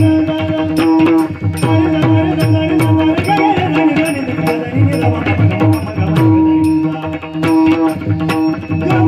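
Instrumental passage of Marathi devotional music: a hand drum playing a steady rhythm of deep strokes that slide down in pitch, over a long held note and a melody line, with small cymbal-like clicks keeping time.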